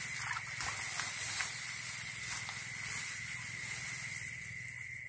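Steady night-time chorus of insects, a continuous high hiss with a steady high-pitched drone running through it, and faint brief rustles of rice plants and grass being pushed through in the first second or so.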